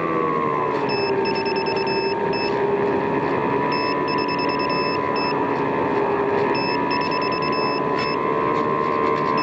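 Radio-controlled model plane's motor running as it flies, a steady whine that dips in pitch just after the start and then holds. A short pattern of high beeps repeats about every three seconds over it.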